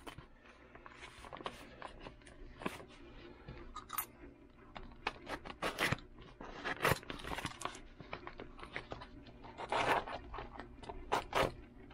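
Brown padded paper mailer crinkling and rustling as it is handled and turned over, in irregular crackles that grow busier around the middle and again near the end.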